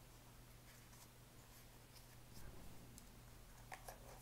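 Near silence, with faint handling noises: a few soft clicks and rustles as a folding knife is lifted out of its cardboard presentation box and the box is handled, two of the clicks close together near the end.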